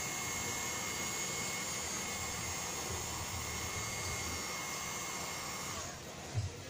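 Electric heat gun blowing hot air onto carbon-fibre vinyl wrap, a steady rushing fan noise with a thin high whine. It stops about six seconds in.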